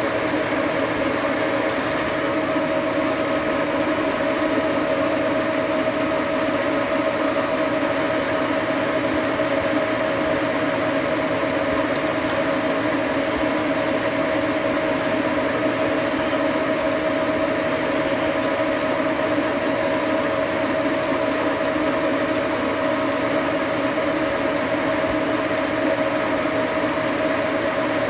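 Engine lathe running steadily while its turning tool cuts a spinning metal workpiece. It makes a constant mechanical hum and whine, with a faint high tone that comes and goes.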